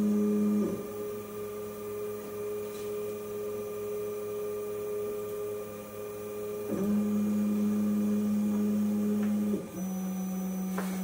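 Workbee CNC router's stepper motors humming with a steady pitched tone as the gantry moves a marker over paper. The tone's pitch and strength shift with each new move, about a second in and twice more later on.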